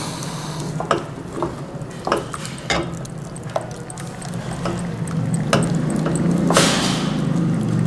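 Silicone spatula stirring a thick egg and semolina batter in an aluminium pot, knocking against the pot's side every half second to a second, while liquid egg mixture is poured in from a glass bowl. A louder swish comes about six and a half seconds in, over a steady low hum.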